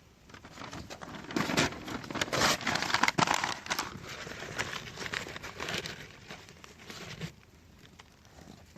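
Dry material being crumpled and handled: a crinkling rustle with sharp crackles, starting about a second in and dying away near the end, as a fire is being laid for a smoke test.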